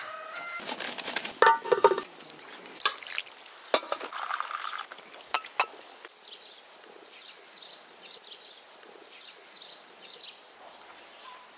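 Short clinks and knocks of dishes and cutlery over the first half, then a quieter stretch with faint bird chirps repeating.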